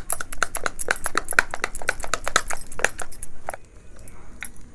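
A spoon beating thick flour jalebi batter in a bowl, rapid even strokes at about six a second that clack against the bowl. The batter has rested and is being beaten again before frying. The beating stops about three and a half seconds in.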